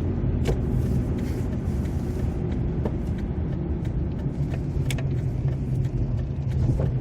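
Steady low rumble of a car's engine and tyres while driving, heard from inside the cabin, with a few faint ticks.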